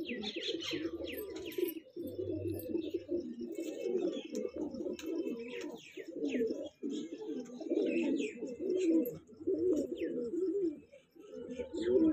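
Domestic pigeons cooing almost without pause, in overlapping warbled coos, with quick high chirps of small birds over the top.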